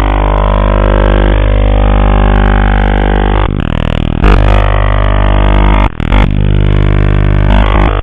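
Shortwave radio audio: a loud, droning buzz made of many steady tones with a heavy low hum, sounding narrow and muffled the way an AM receiver passes it. It dips briefly about six seconds in.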